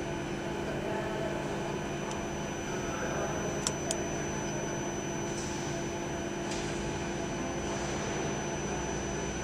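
Steady hum of a CNC machine standing powered up, several constant tones over a noisy bed, with two sharp ticks close together about three and a half seconds in.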